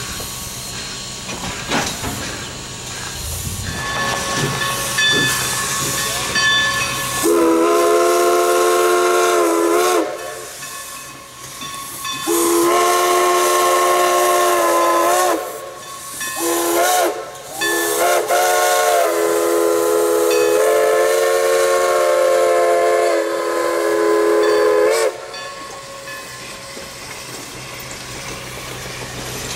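Everett Railroad No. 11, a 2-6-0 Mogul steam locomotive, hissing steam, then sounding its steam whistle, several notes at once, in a run of blasts: two long, a couple of short, then one long of about six seconds. Near the end the whistle stops and the train's cars roll past.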